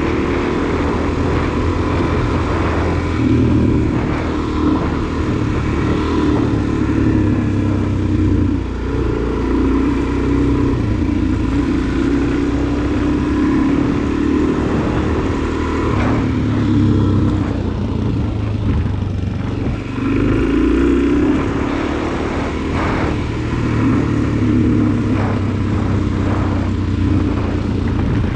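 Suzuki DR-Z400SM's single-cylinder four-stroke engine running under way, its revs rising and falling with the throttle, with a few short knocks.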